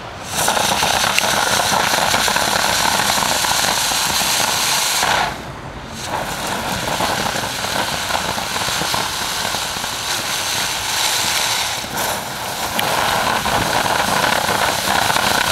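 Ground fountain firework spraying sparks with a loud, steady hiss and dense crackle. It breaks off briefly about five seconds in, then starts again.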